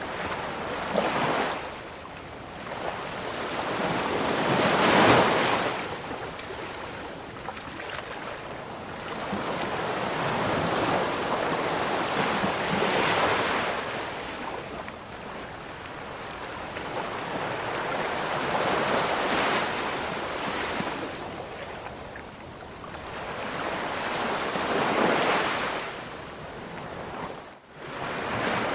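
Ocean surf: waves breaking one after another, each a long rush that swells and fades about every six seconds. Near the end the sound dips out briefly.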